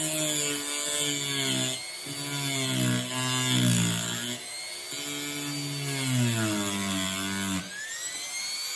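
Dremel rotary tool running with a grinding wheel on a razor's scale pin. Its whine sags in pitch and recovers several times as it is pressed into the metal and eased off, and rises near the end as the load comes off.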